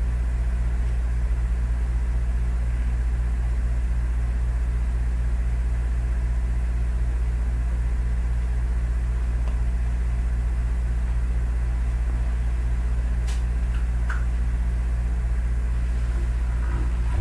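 Steady low electrical hum at an even level, with a few faint clicks of handling about two-thirds of the way through and near the end.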